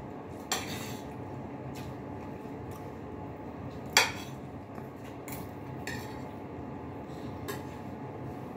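Cutlery clinking against dishes a handful of times, the sharpest clink about four seconds in and another about half a second in, over a steady background hum.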